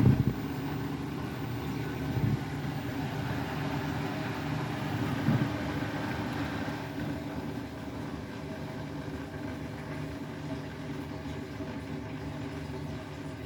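Beko WTK104121W washing machine's motor turning the drum with a steady hum while it tries to balance the load before spinning, with a few thumps from the drum and washing in the first half.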